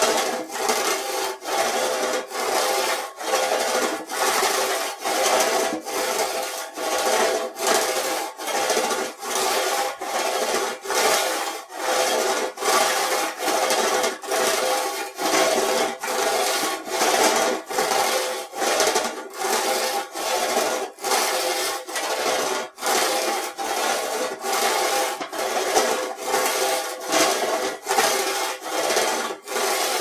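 Wrinkled sheet metal scrubbed against metal in a steady run of back-and-forth scraping strokes, a little more than one a second, each a rasping scrape with a faint metallic ring.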